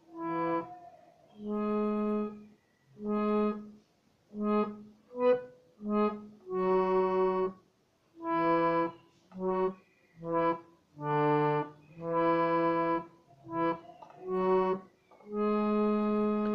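Harmonium played one note at a time, picking out a kirtan melody: about fifteen separate reedy notes, some short and some held for a second or two, with brief gaps between them.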